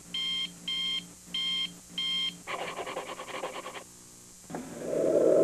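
Electronic beeping, about two beeps a second, ending a little past two seconds in. A rapid rattling buzz follows, then a brief lull, and a loud steady low noise starts near the end.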